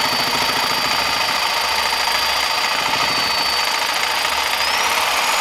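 Corded reciprocating saw running steadily, its blade sawing into a thick ostrich eggshell; the motor's whine climbs in pitch near the end.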